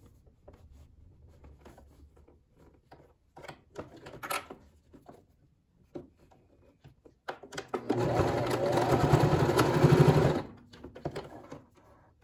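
Domestic sewing machine stitching down a folded fabric strap. It runs in one steady, evenly pulsing burst of about three seconds, starting about seven seconds in and stopping sharply. Before and after it there are faint clicks and rustles as the fabric is positioned under the presser foot.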